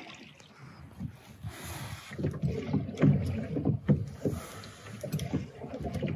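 Small rowboat being rowed with wooden oars: the blades splash and swish in the water, with irregular sharp knocks of the oars.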